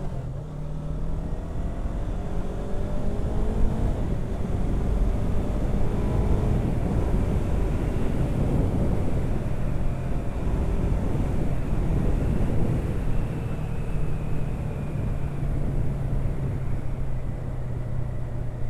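Yamaha R3 parallel-twin motorcycle engine pulling up in pitch in the first few seconds, then running steadily under heavy wind noise on the helmet microphone, ridden with the visor open.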